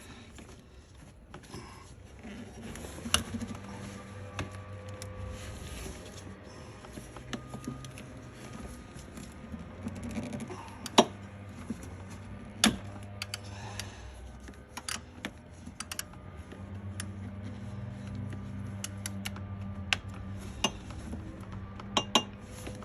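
Metal hand tools clinking and tapping at irregular moments, with a few sharper knocks: a socket and long extension handled against metal in an engine bay.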